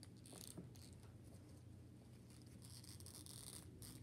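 Near silence with faint scratchy rustling and a few small clicks from the plastic parts of an action figure being handled.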